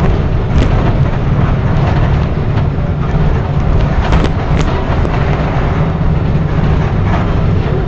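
Volkswagen-chassis city bus (Busscar Urbanuss body) heard from inside the passenger cabin while under way: steady engine and road noise, with a few short knocks and rattles from the body, two of them about half a second in and around four seconds in.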